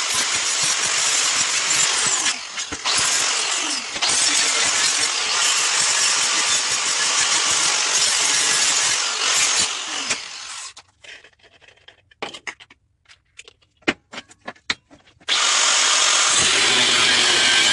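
A power tool running loudly on steel. It stops about eleven seconds in, leaving a few sharp metal knocks, and starts up again about four seconds later.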